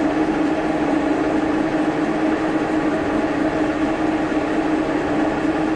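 Milling machine running with a steady hum, its cutter trimming away part of a lathe follow rest clamped to the table.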